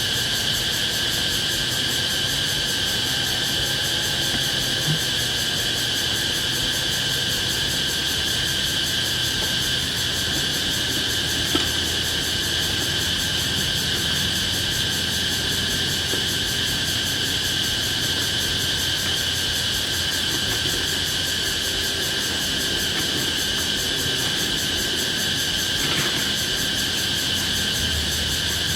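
Steady, high-pitched chorus of forest insects droning without a break, with a couple of faint clicks.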